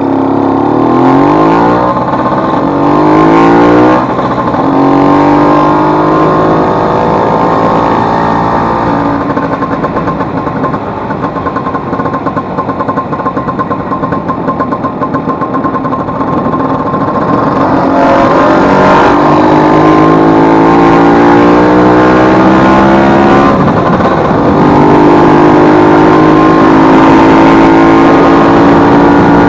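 Vespa 150's single-cylinder two-stroke engine running under way, its pitch rising, then dropping sharply about four seconds in, sagging lower through the middle, then climbing again and dropping sharply once more a few seconds before the end.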